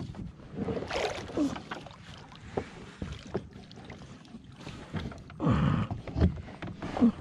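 Kayak paddling: the paddle blades swish and splash through calm water stroke after stroke, with scattered sharp knocks, the loudest swish about five and a half seconds in.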